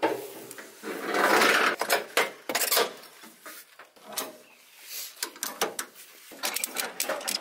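Ratchet tie-down strap being tightened on a car trailer: the webbing is pulled through with a rasp, then the ratchet clicks in quick, uneven runs, densest near the end.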